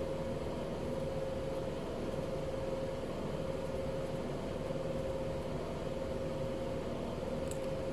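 Steady mechanical hum holding one constant tone, the even drone of a running fan or similar appliance. A faint high tick comes near the end.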